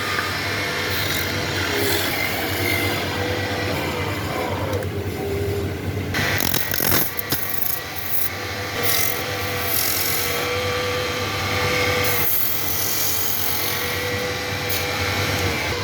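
A power tool working wood: a steady motor hum with rasping and rubbing of the cutting, and a short clatter about six to seven seconds in.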